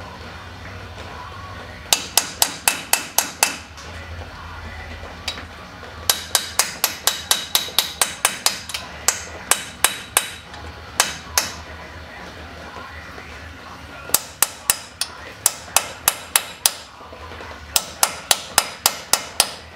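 A hammer rapidly striking a stainless steel punch against a stubborn, stuck part of a Dana 44 front hub assembly to break it loose. The blows come in quick runs of about five a second, each strike ringing, with short pauses between the runs.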